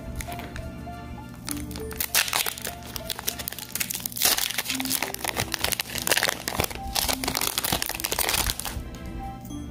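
Foil wrapper of a Pokémon trading-card booster pack crinkling and crackling as it is torn open. The crinkling starts about a second and a half in and stops shortly before the end, over background music.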